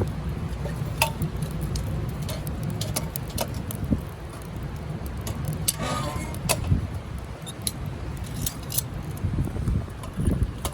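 Wind buffeting the microphone as a steady low rumble, with scattered light clicks and clinks throughout.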